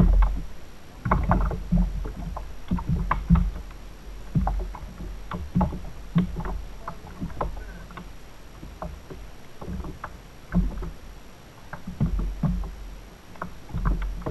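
Sea water slapping and lapping against a fishing kayak's hull in uneven surges, with scattered short knocks and clicks from the kayak and tackle as the angler works the rod.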